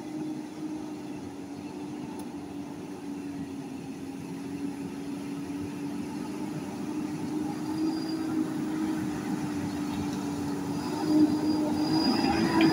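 An off-road pickup truck working under load with a steady mechanical whine that slowly grows louder, its pitch rising slightly near the end.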